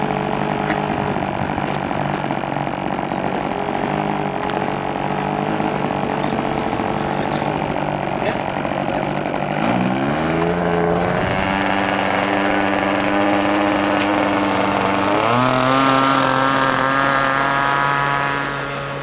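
Small engine of a radio-controlled Piper Cub model running at idle, then opened up in two steps, about ten seconds in and again about fifteen seconds in, each time rising in pitch. It is held at high throttle for the take-off run.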